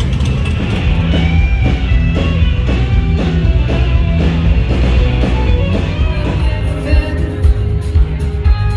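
Rock music with guitar and a strong, steady low end.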